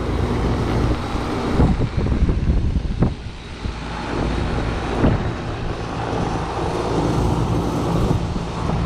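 2004 Tempstar 5-ton central air-conditioner condensing unit running: a steady compressor hum under the rush of the condenser fan. A few brief knocks about two, three and five seconds in.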